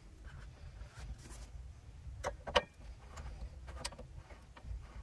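A few sharp clicks and clinks of hand tools (pliers and a screwdriver) working on wire connections and terminals, the loudest about two and a half seconds in, over a low steady rumble.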